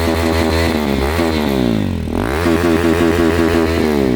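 KTM Duke 390's single-cylinder engine revved twice through its exhaust: the pitch climbs and holds high, drops about two seconds in, then climbs again and falls back near the end.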